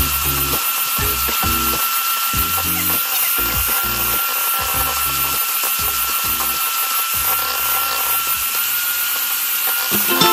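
Electric hand mixer running steadily, its beaters whipping thick cream in a glass bowl, with a constant motor whine.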